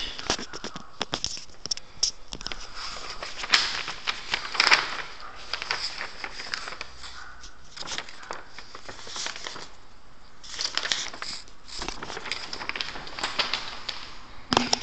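Close rustling and crinkling with many small irregular clicks: handling noise, with no speech over it.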